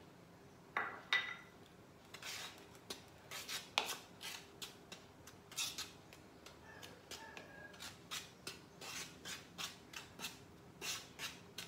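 A metal fork stirring dry flour in a plastic bowl, mixing in the spices: irregular short scrapes of the tines through the flour and against the bowl, about two or three a second.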